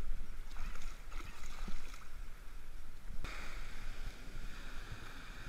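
Low wind rumble on the microphone with a few light splashes from calm water. About three seconds in, the sound cuts abruptly to steady surf washing in over the beach.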